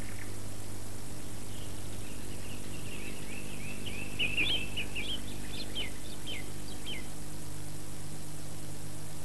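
Small birds chirping, a quick run of short high calls from about two to seven seconds in, over a steady low hum.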